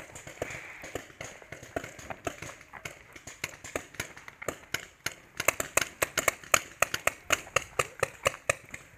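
Paintball markers firing: a run of sharp pops, scattered at first, then coming fast, several a second, from about five seconds in until near the end.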